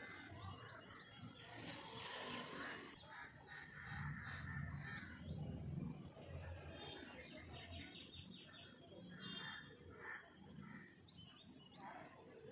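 Crows cawing on and off, with a low rumble strongest around the middle.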